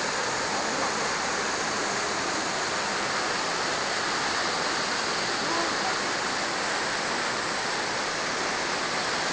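A waterfall's steady, unbroken rush of falling water, an even hiss strongest in the upper range.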